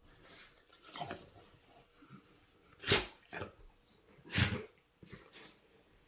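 Rhodesian Ridgeback puppy snuffling through its nose: a run of about five short, noisy snuffles, the loudest about three and four and a half seconds in.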